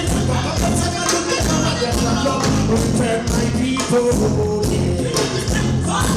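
Live reggae band playing: steady bass and drums under shaker or tambourine strokes, with a melody line over the top.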